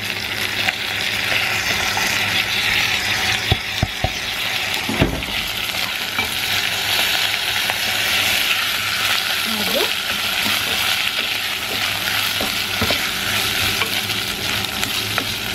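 Washed rice and browned vermicelli sizzling in hot ghee in a pot as they are stirred, with a steady frying hiss and a few knocks of the spoon against the pot about four to five seconds in.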